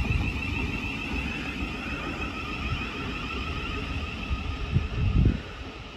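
Thameslink Class 700 (Siemens Desiro City) electric multiple unit at the platform: a steady high electrical whine over a low rumble, with the rumble swelling briefly about five seconds in.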